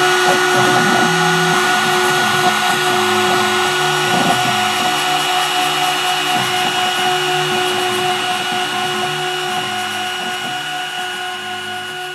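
CNC router spindle running at about 22,000 rpm with a 30-degree V-bit, giving a steady high whine while it mills the copper layer of a PCB. Under it, the axis motors hum at a lower pitch that shifts in steps as the machine moves. The whole sound fades away over the last few seconds.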